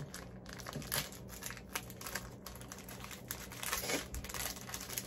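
Plastic snack wrapper crinkling and crackling in the hands as it is opened to get at a small cookie, in irregular bursts of crackles.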